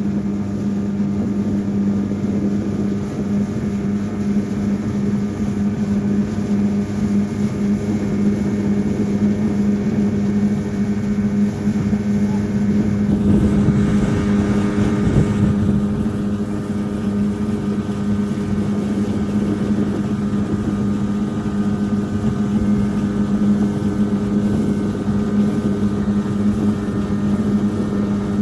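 Motorboat engine running steadily with an even hum under the rush of wind and water. About halfway through, a louder rushing surge lasts a few seconds.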